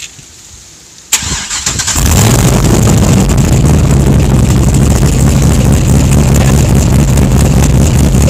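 De Tomaso Pantera's V8 being started: the starter cranks about a second in, the engine catches about two seconds in, then it runs on at a loud, steady idle.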